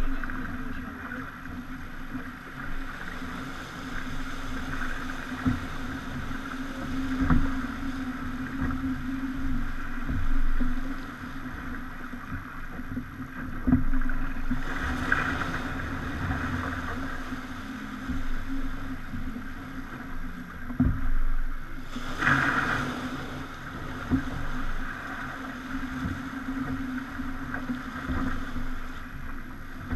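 A Pogo 30 sailing yacht under way at sea: a steady hum and scattered low thumps, with two louder rushes of noise, one about halfway through and one about three quarters in.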